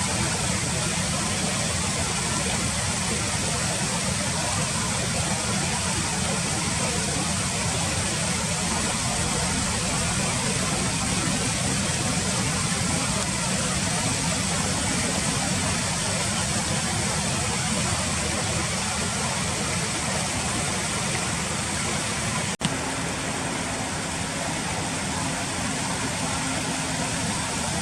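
Steady rushing background noise with no distinct calls, broken once by a brief drop about 22 seconds in.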